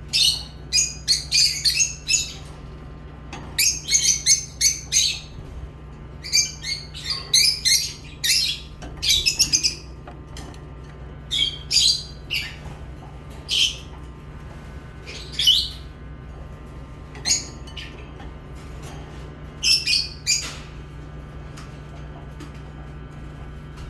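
Lovebirds chirping and squawking in quick clusters of short, high, sharp calls, thick over the first ten seconds, then sparser, stopping about twenty seconds in. A steady low hum runs underneath.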